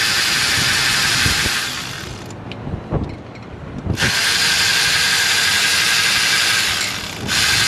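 A power tool spinning out the mounting bolts of a Ford 6.7 Power Stroke diesel's EGR valve. It runs in bursts: about two seconds, a pause with a few knocks, about three seconds from four seconds in, then once more just before the end.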